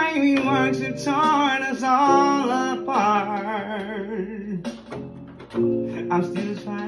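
A man singing long, sliding notes without clear words over a steady music accompaniment with plucked guitar. The voice stops about four and a half seconds in while the accompaniment carries on.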